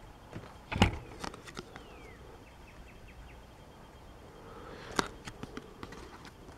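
Cardboard trading cards handled in the hands: a few soft clicks and rustles as a card is flipped over and shuffled to the back of the stack, loudest about a second in and again near five seconds. A faint bird chirp sounds in the background between them.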